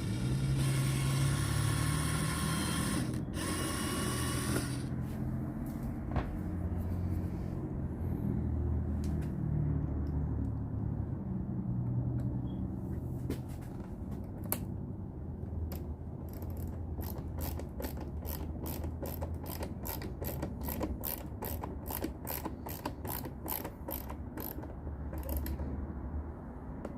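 A ratcheting hand tool clicking steadily, about two to three clicks a second, while driving headlight screws; a brief high whir comes in the first few seconds, over a steady low hum.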